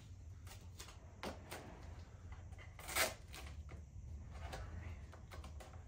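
Light handling noises as duct tape is pressed and smoothed onto a small fingerboard ramp: scattered soft clicks and rustles, with a sharper crackle about three seconds in, over a low steady hum.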